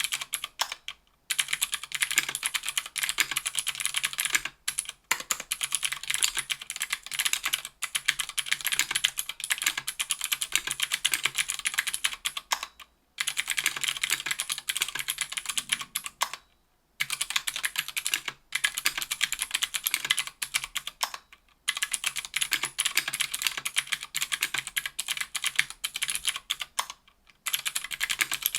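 Continuous fast typing on a 60% aluminium-case keyboard with an aluminium plate, GMK keycaps and stock Gateron Blue Ink 70 g clicky switches: a dense stream of sharp clicks, broken by several brief pauses.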